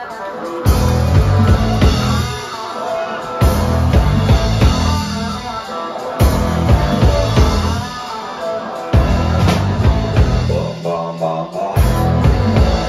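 Live rock band playing: amplified electric guitar, electric bass and drum kit.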